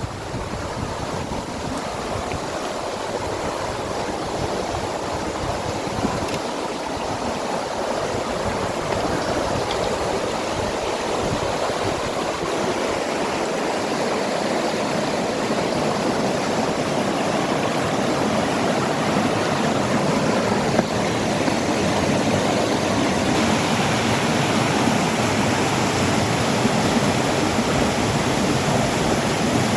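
Steady rushing noise of strong wind and river water, slowly growing a little louder.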